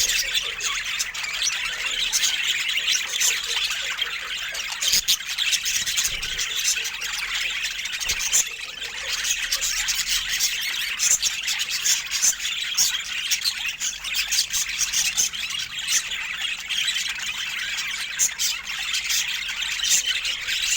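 Budgerigar chatter: a dense, unbroken run of chirps, squeaks and warbles.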